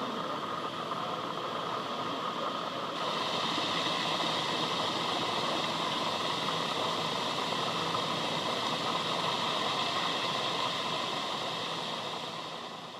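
Driverless airport people-mover tram running, a steady rushing noise that grows louder and brighter about three seconds in and fades near the end.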